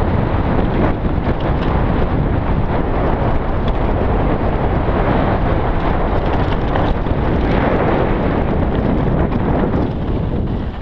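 Loud, steady wind rush buffeting a handlebar-mounted action camera's microphone as a mountain bike descends a dirt singletrack at speed, with the tyres rolling over dirt and loose gravel underneath.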